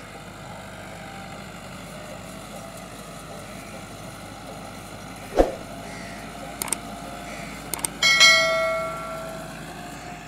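Massey Ferguson 385 tractor's diesel engine running steadily under load as it pulls a disc harrow. About halfway through a sharp click sounds, then two lighter clicks, and near the end a bright bell-like ding rings out for about a second: the click and notification-bell sound effects of a subscribe-button animation.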